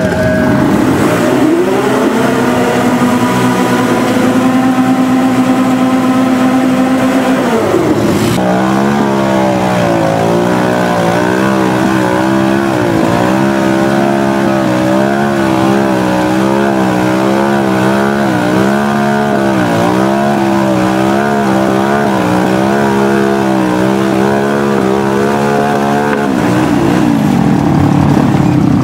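Quad ATV engine revving hard while the quad is bogged in deep mud. Its pitch climbs over the first couple of seconds and holds, drops sharply about eight seconds in, then stays high and wavers up and down before falling away near the end.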